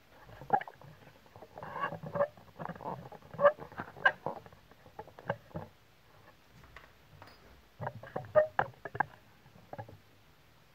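Handling noise from a handheld vacuum cleaner's plastic floor brush and wand moved about on a tiled floor: irregular clicks, knocks and short scrapes in two bursts, with the motor not running.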